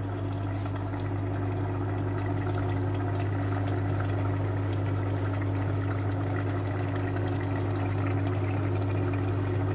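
A pot of cassava-leaf sauce simmering on the stove: a steady hiss of bubbling liquid over a constant low hum.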